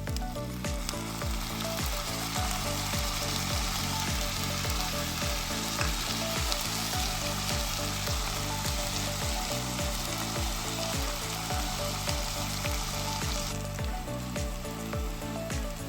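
Pork sizzling as it fries in a pan, a dense hiss that starts about a second in and drops away near the end, over background music with a steady beat.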